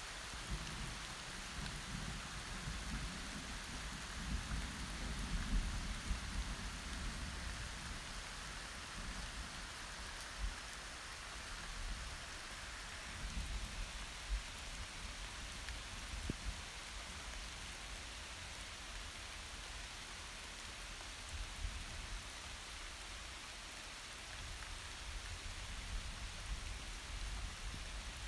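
Steady rain falling during a thunderstorm, with low thunder rumbling through the first several seconds and again more faintly about thirteen seconds in.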